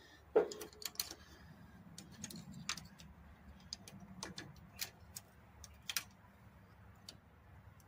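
Irregular sharp metallic clicks and clinks from hand tools and small hardware being handled during repair work, with a louder knock about half a second in.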